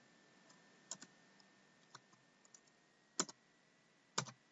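Scattered keystrokes on a computer keyboard as numbers are typed in: a few quick pairs of key presses about a second apart, with a faint single press between them.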